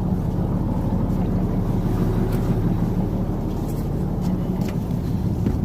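Fishing boat's engine running with a steady low drone, and a few faint clicks over it.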